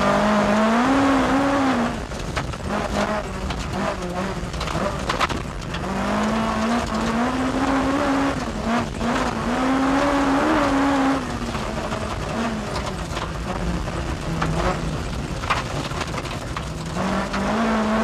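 In-car sound of a rally car driven flat out on a gravel forest stage: the engine revs rise and fall again and again through gear changes and corners, with gravel noise and stones clattering under the car.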